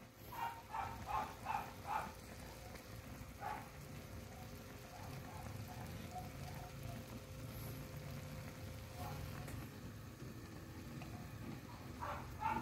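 Thick sauce bubbling in a pan of simmering chicken feet: short popping blips, a quick run of them in the first two seconds and another cluster near the end, with scattered fainter pops in between over a steady low rumble.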